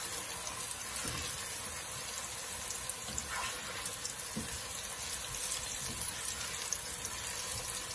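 Sliced onions sizzling in hot oil in a pot, fried to golden brown, with a steady frying hiss as a spatula stirs them.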